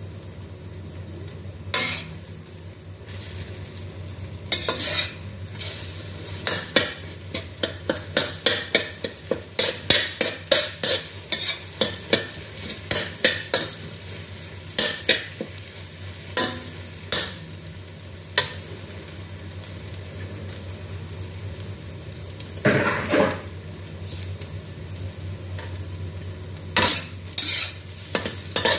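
Metal spatula tapping and scraping against a stainless steel wok as eggs are broken up and scrambled, over a steady sizzle of frying. The taps come fast and close together in the middle, and there is a longer scrape about three-quarters of the way through.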